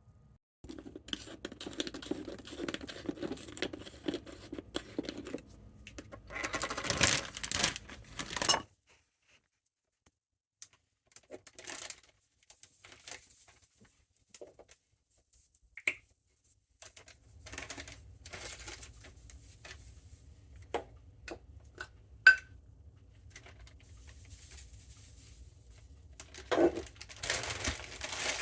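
Kitchen food-prep handling noises: stretches of rustling and scraping, broken up by scattered sharp clicks and taps.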